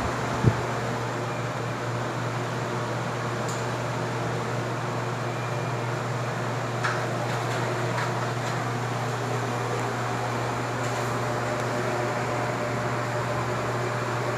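Arge 50 cm oscillating wall fan running steadily: a rush of moving air over a constant low motor hum, with a few faint ticks.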